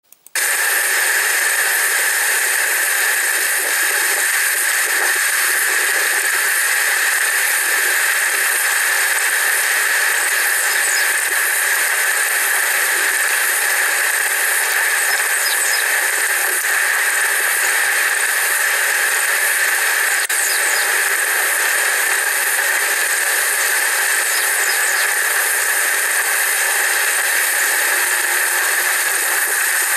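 A loud, steady hiss with no bass, played back through a screen's speaker. It starts a moment in and holds unchanged throughout.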